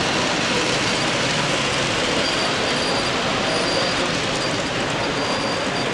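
OO gauge model diesel locomotive running with a train of coaches along the layout track, with a faint on-and-off high-pitched whine, over the steady hubbub of a busy exhibition hall.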